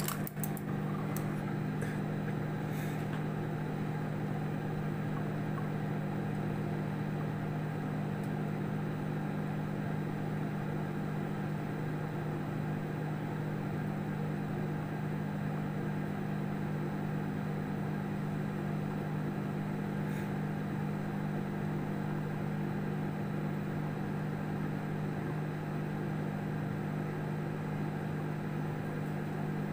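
Samsung microwave oven running with a steady low hum.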